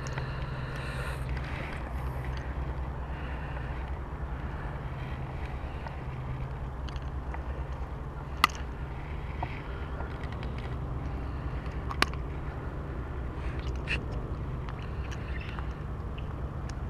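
Two sharp metallic clicks about three and a half seconds apart, and a fainter one later, from a hook-removal tool working the lure out of a northern pike's mouth, over a steady low rumble.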